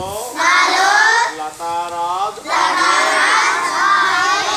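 A group of schoolchildren reciting words aloud together in chorus, in two long drawn-out phrases with a short break between.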